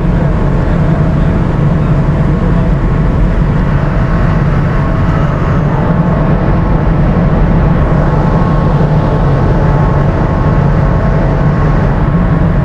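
Marine diesel engines running with a loud, steady low rumble and hum, with the tug working close alongside during the ship's undocking.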